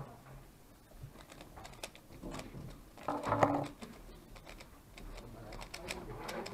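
MoFang GE Thunderclap 3x3 speedcube turned rapidly one-handed, its plastic layers clicking in fast, irregular runs. A brief louder noise comes about three seconds in.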